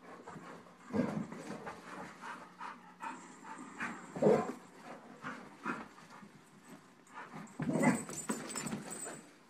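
A Rottweiler and a West Highland terrier in rough play: dog panting throughout, with short louder outbursts about a second in, near the middle and near the end, among light clicks and knocks.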